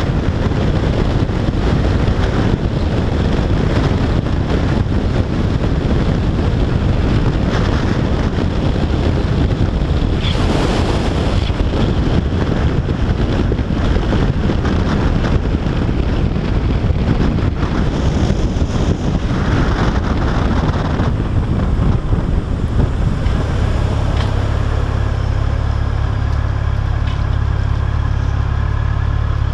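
Heavy wind rush on the microphone of a Yamaha FJR1300AE sport-touring motorcycle ridden at speed, with road and engine noise beneath. About two-thirds through, the wind falls away as the bike slows into traffic, leaving its inline-four engine running low and steady.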